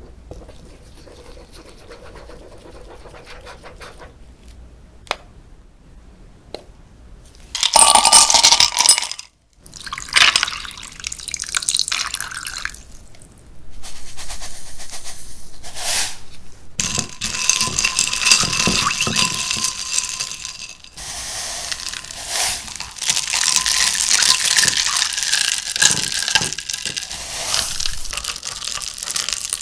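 After a few faint clicks, ice cubes of frozen distilled water clatter into a glass beaker about eight seconds in. Then the ice water is stirred with a silicone spatula, with ice chunks knocking and swishing against the glass as lye (caustic soda) dissolves in it for cold-process soap.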